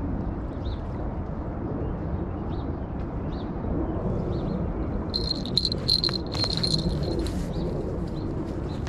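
High-pitched insect trill buzzing for about two seconds, starting about five seconds in, over a steady outdoor background rumble with a few faint bird chirps.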